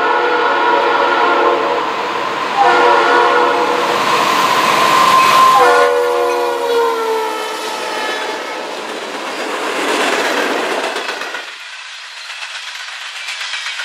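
Norfolk Southern diesel locomotive's air horn sounding two long blasts as the freight train approaches, its pitch sliding down as the locomotive passes about six seconds in. Then the locomotives and tank cars rolling past, wheels running on the rails, quieter after about eleven and a half seconds.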